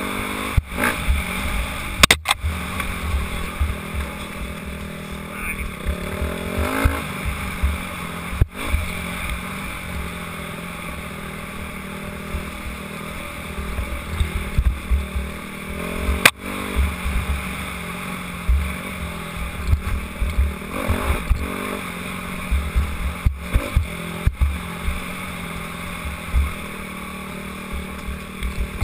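Dirt bike engine running under a rider on a rough trail, the revs rising and falling with the throttle a few times, heard from a helmet-mounted camera. Gusty wind rumble on the microphone and a couple of sharp knocks from the bumpy ground come through with it.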